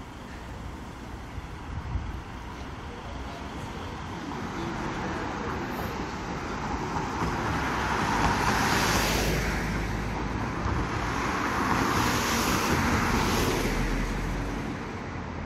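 Road traffic: cars passing through a town intersection, their engine and tyre noise swelling as two vehicles go by close, one a little past the middle and one near the end.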